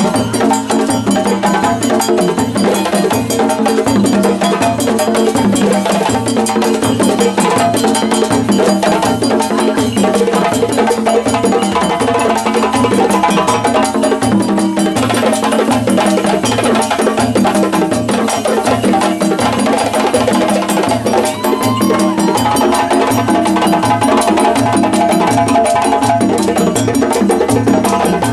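West African drum ensemble playing together: hand-played djembes over dunun bass drums beaten with sticks, with the bells mounted on the dunun ringing along, in a steady, dense rhythm that does not let up.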